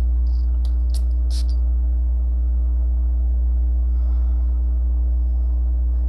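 Natura Luna Intenso Deo Parfum spray bottle pumped three times in quick succession, short hissing sprays about a second in, over a steady low hum.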